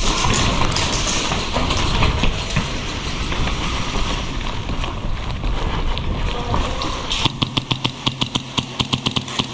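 Rumbling, rustling movement noise from a player running through a building with airsoft gear. From about seven seconds in, a fast train of sharp clicks, about six a second, over a low steady hum.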